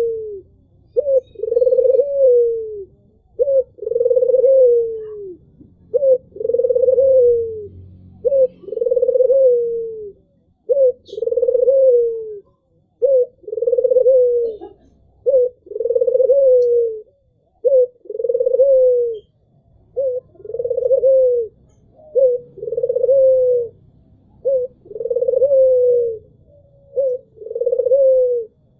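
Albino puter (white Barbary dove) cooing over and over, about one coo every two seconds. Each coo is a short note followed by a longer note that falls in pitch.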